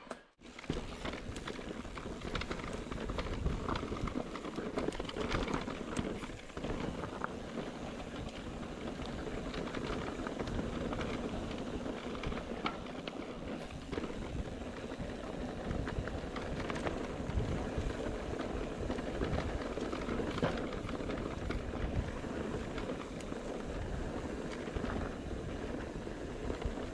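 Mountain bike riding over a rough dirt and stone trail: a steady rumble of tyres on the ground with frequent rattles and knocks from the bike.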